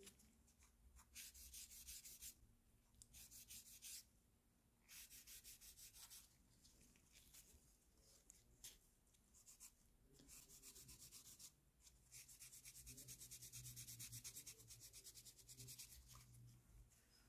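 Faint sanding of a small plastic model part: quick back-and-forth rubbing strokes in several bursts, each one to four seconds long, the longest near the end.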